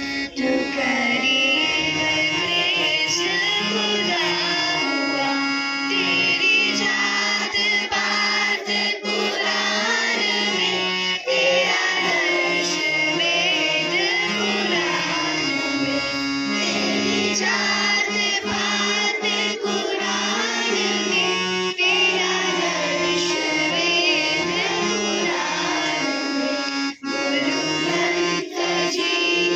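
A girl sings a song into a microphone, amplified, over the music band's instrumental accompaniment holding long steady notes beneath her voice.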